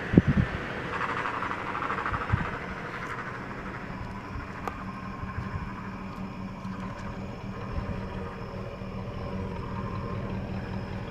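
Freshly rebuilt Chevy 350 small-block V8 (L31 Vortec) in a GMC truck idling steadily at about 500 RPM, with a few short low thumps near the start.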